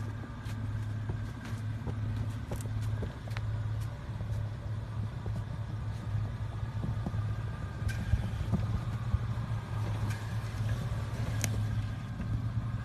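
Vehicle engine running with a steady low hum, with scattered clicks and knocks over it.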